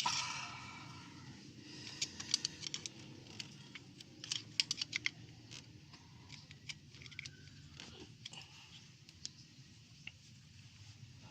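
Scattered light clicks and taps of hand tools and engine parts being handled, in small clusters, as the spark plug wells are opened one by one.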